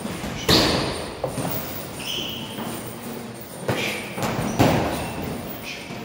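Several sharp smacks of kicks and punches landing on boxing gloves and shin guards in kickboxing sparring, ringing with echo in a large hall.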